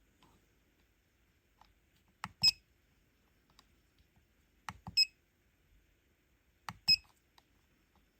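Three short electronic beeps from a T12 soldering station controller's buzzer, about two seconds apart, each just after a click.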